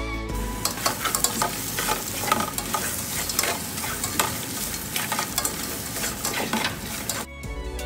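Ground pork and crab pieces sizzling in a nonstick pot as a utensil stirs them, scraping and clacking against the pan. The frying cuts off suddenly near the end as music comes in.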